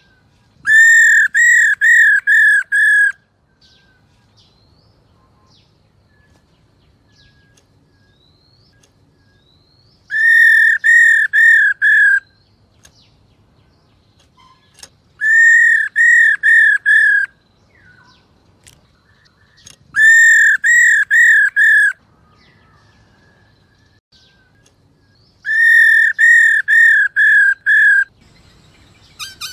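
Female black-throated laughingthrush giving its 'ro' call, the call keepers play to rouse males into singing. It comes in five bursts of four to seven quick, clear, identical arching notes, a few seconds apart.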